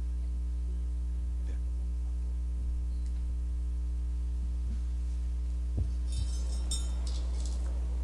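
Steady electrical mains hum from the room's sound system, with a small knock about six seconds in and a short run of light clicks and rattles just after, as things on the table are handled.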